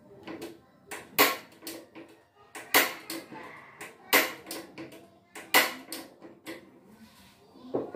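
Sharp clinks and knocks of kitchen utensils against cookware. The four loudest come about a second and a half apart, with fainter taps between them.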